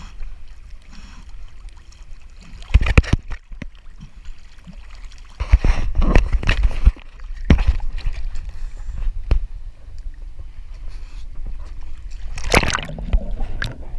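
Water splashing and sloshing around a canoe, in several loud bursts: about three seconds in, a longer stretch around six seconds, and again near the end.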